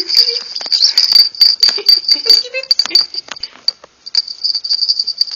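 A budgie's small cage bell jingling rapidly and continuously, shaken and knocked as the budgie rubs against it trying to mate with it, with a short break about four seconds in.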